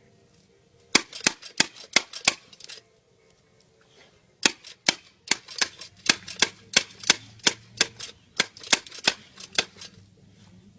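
A puppy lapping water from a pet water fountain: sharp, wet clicks about three a second, in a short run of about two seconds, then a pause, then a longer run of about five seconds.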